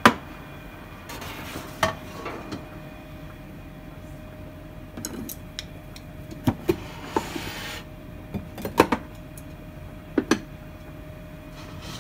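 Kitchen handling noises: a sharp clack at the start, then scattered light clicks and knocks, over a steady faint hum.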